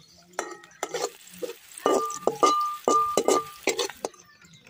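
Metal ladle clinking and scraping against a steel cooking pot while stirring a fish curry, several sharp clinks in quick succession that ring briefly, loudest through the middle.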